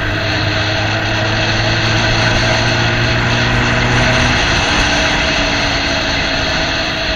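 Motorcycle engine running while riding, over a steady rushing noise; the engine's even hum drops away about four seconds in while the rushing goes on.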